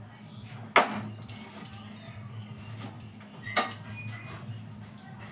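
Metal cookware clanking: two sharp knocks about three seconds apart, with small clinks between, over a steady low hum.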